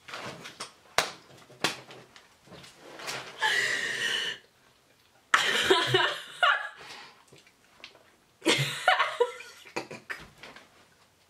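A woman laughing hard in several separate bursts, with a few short sharp smacks in between.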